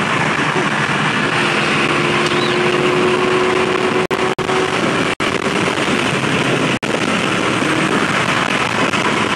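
Steady wind and road noise inside a Ford Crown Victoria Police Interceptor cruising at highway speed. The sound cuts out for an instant four times in the middle.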